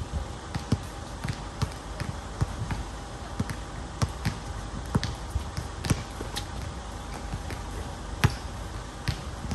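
Basketball being dribbled on a hard outdoor court: a string of sharp bounces at an uneven pace, with one louder hit near the end.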